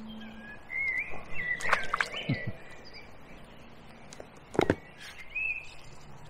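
Songbirds singing short warbling phrases, with a few sharp knocks; the loudest knock comes about two-thirds of the way through.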